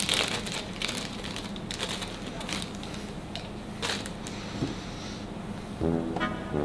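Small clear plastic bag crinkling and crackling as it is handled and folded in the hands, with many short sharp rustles over the first four seconds. Music with brass comes in near the end.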